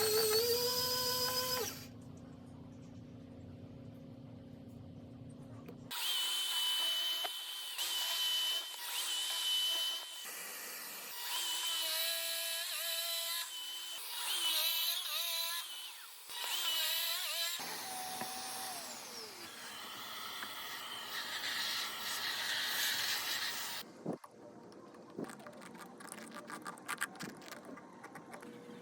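Handheld power tool working small pieces of wood in short separate runs: the motor whirs, speeds up at the start, and winds down with a falling pitch about 18 seconds in. Scattered clicks and taps follow near the end.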